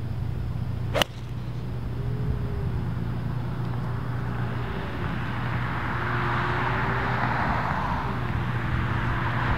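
Golf tee shot with a 4 iron: one sharp crack of the clubface striking the ball about a second in, over a steady low hum. A soft hiss swells in the middle.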